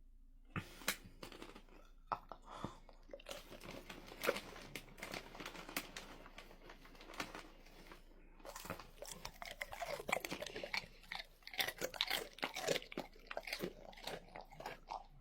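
A dog crunching and chewing Cheezies, crunchy corn cheese snacks: a quick, irregular run of crunches with a short pause about eight seconds in.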